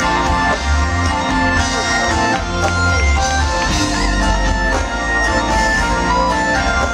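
Live band playing an instrumental passage: drum kit with cymbals, electric bass and electric guitar, with long held melody notes over a heavy bass line.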